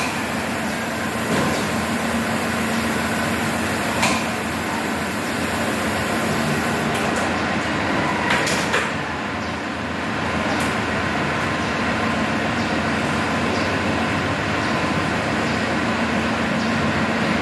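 White bi-fold plantation shutter panels being swung and folded by hand, giving a few scattered clicks and knocks from their hinges and track, the sharpest about four seconds in. A steady background hum and hiss runs underneath.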